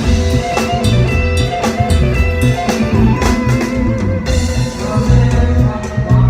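Isan phin, a Thai plucked lute, playing a solo melody over a steady drum-kit beat and bass backing.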